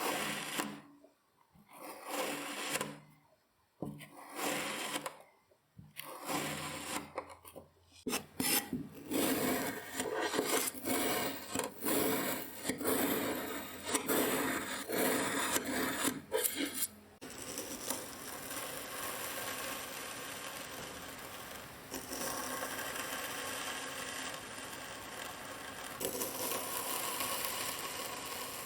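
Kinetic sand being crushed and scraped: a few separate gritty strokes about two seconds apart, then dense crunching with sharp crackles, which about two-thirds of the way through gives way to an even, continuous rasp.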